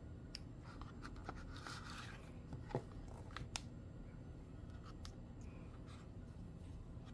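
Faint handling sounds of a phone and its cardboard box and packaging: soft rustling and scraping with scattered small clicks and taps, two of them sharper near the middle.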